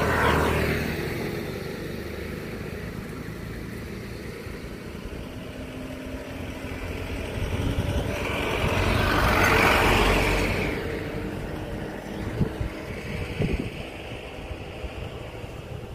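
A road vehicle passing by, its noise swelling up and dying away over a few seconds. A few faint knocks follow near the end.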